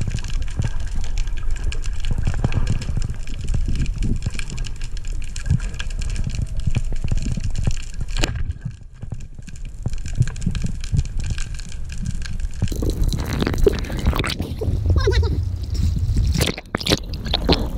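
Underwater sound picked up by a camera on a speargun: a steady low rumble with bubbling and crackle. It drops out briefly about eight seconds in, and from about thirteen seconds it gives way to choppier water sound at the surface.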